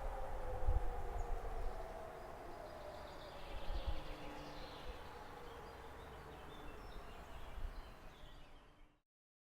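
Pneumatic civil-defence siren (Hörmann HLS 273) winding down at the end of a signal, its single tone sliding slowly lower and fading away over the first few seconds. Then faint outdoor background with a few bird chirps, cut off abruptly near the end.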